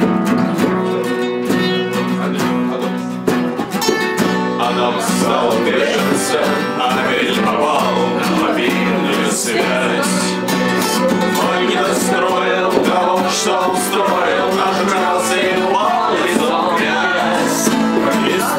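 Three acoustic guitars strummed together in a song; about four and a half seconds in, men's voices start singing along with them.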